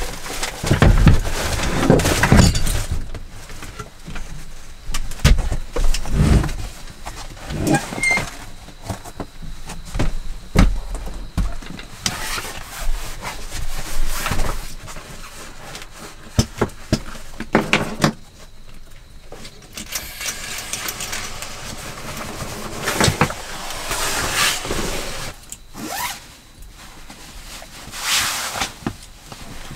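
Handling noise: wooden knocks and thumps as a small wooden table is moved, then rustling and soft thuds as a rolled sleeping mat is laid out and a sleeping bag is pulled from its fabric stuff sack.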